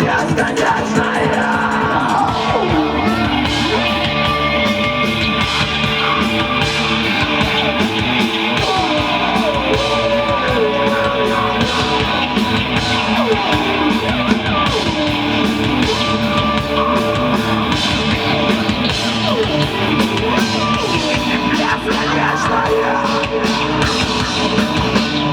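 Rock band playing live: a loud, dense full-band sound that holds steady throughout.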